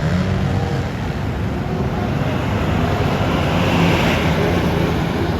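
Road traffic: an engine running low and steady under tyre and wind noise, swelling about four seconds in as a vehicle passes close. No telolet horn sounds.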